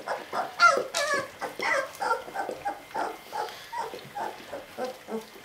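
Young puppies squealing and whimpering in a rapid run of short, high cries, about three a second.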